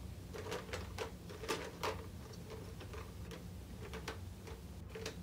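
Irregular light clicks and taps of small letter pieces being handled while the next letter is searched for, over a low steady room hum.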